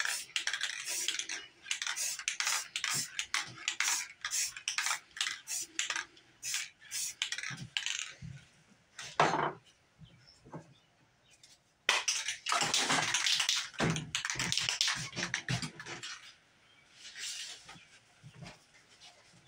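Aerosol spray paint can: rapid rattling and short hisses of spray for several seconds, a quiet pause, then a longer, denser spray that starts suddenly about two-thirds of the way in, followed by a few short puffs.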